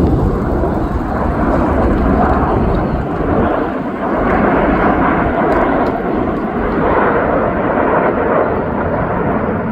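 Loud, steady jet noise from the Red Arrows' formation of BAE Hawk T1 jets flying past, a dense rumble with no clear pitch.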